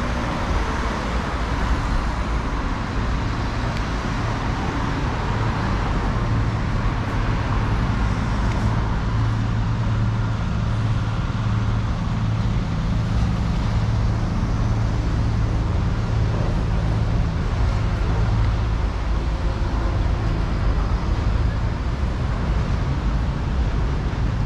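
City street traffic noise: a steady wash of road noise with a low engine hum from a vehicle running close by, which grows stronger in the middle and eases off later.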